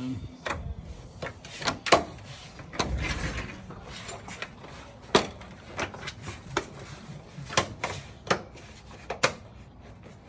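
Plastic bumper trim on a GMC Sierra being pressed into place by hand, its clips popping on. About a dozen sharp clicks and snaps come at uneven intervals, with plastic rubbing between them.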